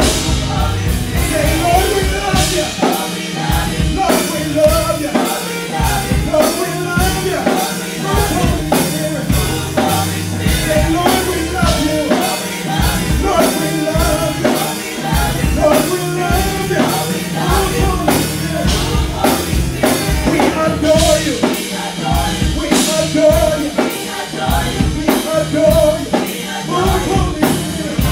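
A group of women singing a gospel praise song together into microphones, amplified through the PA, over a steady drum beat and bass.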